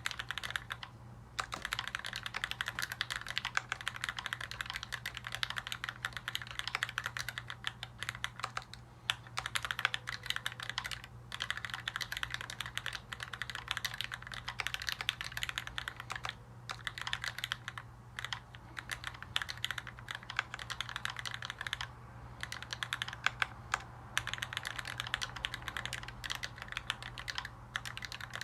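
Continuous typing on an LZ-ergo mechanical keyboard with Linjar linear switches lubed with Krytox 205g0, 55 g springs and an aluminium plate: a fast stream of keystroke clacks with short pauses now and then.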